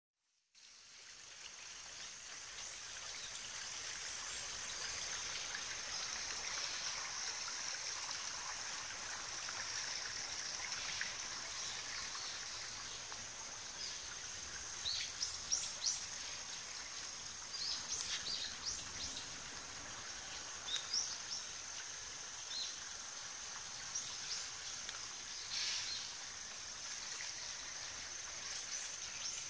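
Small stream running over stones, with a steady high insect drone throughout. From about halfway through, short bird chirps come and go.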